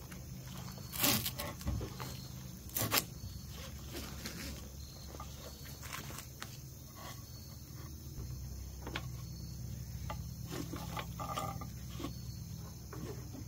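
Cam-buckle tie-down strap being threaded and pulled tight over stone pavers: the metal buckle clinks and the webbing slides, with two louder knocks about one and three seconds in and lighter clicks after. A steady low hum runs underneath.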